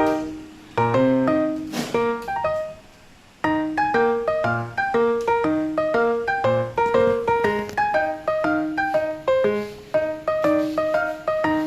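Background piano music: a light tune of separate notes, each ringing and fading, with two short pauses in the first few seconds before it runs on steadily.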